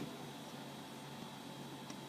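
Quiet steady hum and hiss with a faint click near the end; no distinct event.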